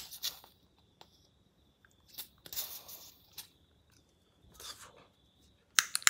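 Butane hissing in short spurts as a refill can is pressed onto a Clipper jet lighter's filling valve. Just before the end, a rapid run of sharp clicks starts as the lighter's ignition is pressed.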